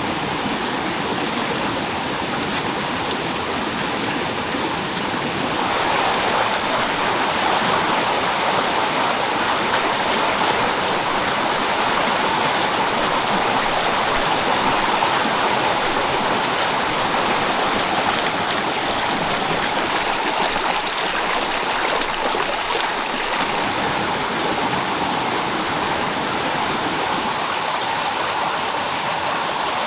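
Rocky forest stream rushing and splashing over stones, a steady wash of water that grows a little louder about six seconds in.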